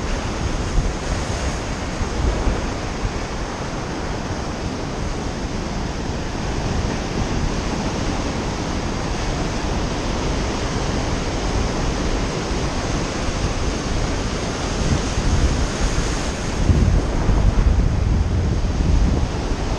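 Ocean surf washing over shoreline rocks, a steady wash of white water with a bigger wave surging in about three quarters of the way through. Wind buffets the microphone.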